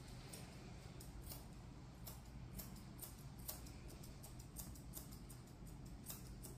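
Small grooming scissors snipping a cat's cheek fur: quick, light snips, about three a second, faint and irregular.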